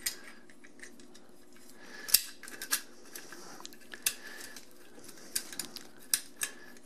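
Scattered small metallic clicks and taps of a cable clamp connector and its nut being fitted by hand into a dishwasher's electrical junction box, the sharpest click about two seconds in, over a faint low hum.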